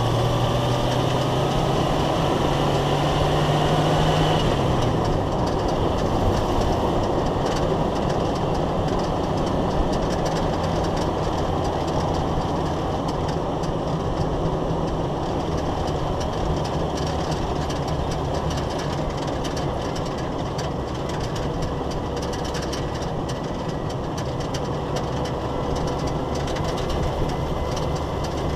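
Jeep Wrangler YJ driving, heard from under the vehicle: the engine note climbs as it accelerates and drops at a gear change about four seconds in, then holds steady at cruise amid loud road and wind noise.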